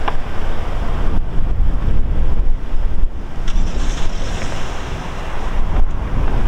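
Wind buffeting the microphone, a gusty low rumble that rises and falls.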